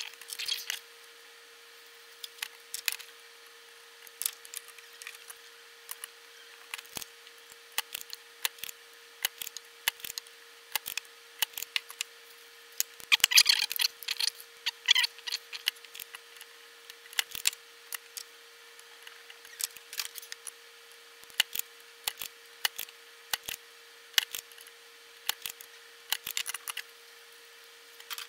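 Hands working on a salvaged ATX power supply circuit board and small tools on a workbench mat: scattered clicks, taps and knocks as the board is handled and parts are pulled off and set down, with a louder flurry about halfway through. A faint steady tone sits underneath.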